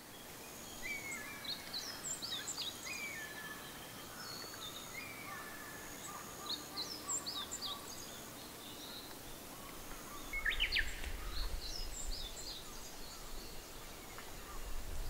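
Several wild birds calling and singing over faint outdoor ambience: many short chirps and whistles, with some held high notes. About ten seconds in, a low rumble joins underneath.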